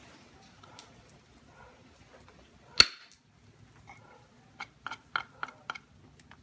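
A wooden billet strikes a notching punch held in the notch of a thick stone flake: one sharp knock about three seconds in. A second or two later comes a quick run of about six lighter clicks.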